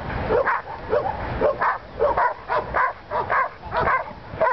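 A dog barking over and over in short, high yips, about three a second.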